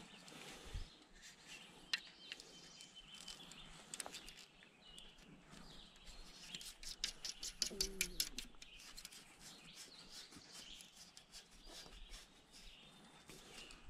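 Birds chirping and calling faintly, with a fast run of sharp, high clicks about seven to nine seconds in.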